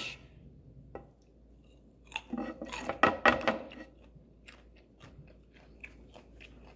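Flat stainless-steel grater with carrot shreds being handled and tilted: a crunchy, scraping burst about two to four seconds in, then scattered light clicks and taps.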